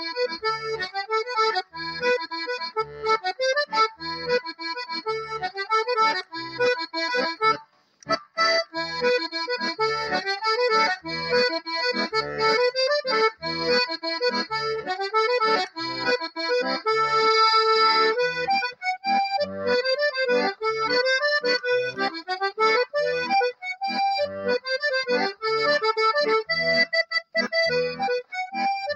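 Hohner diatonic button accordion playing a traditional tune, the melody over a regular bass-and-chord pulse from the left-hand buttons, with a brief break about eight seconds in before the playing resumes.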